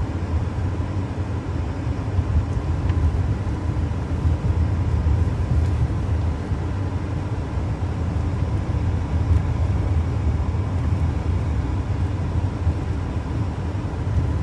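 Steady low rumble of a car's tyres and engine at road speed, heard from inside the cabin.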